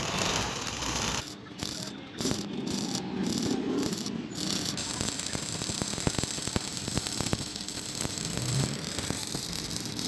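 Stick (arc) welding on steel sheet: the electrode's arc crackles and sizzles steadily as it runs a bead along a seam. The crackle breaks off briefly several times in the first few seconds, then runs on without a break.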